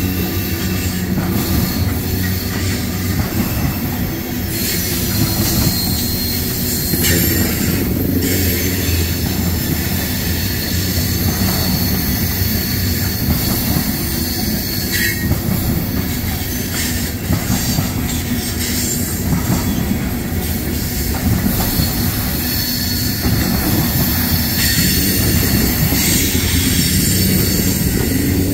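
Freight train of tank cars rolling past: a steady rumble of steel wheels on the rails, with a high-pitched wheel squeal that comes and goes several times.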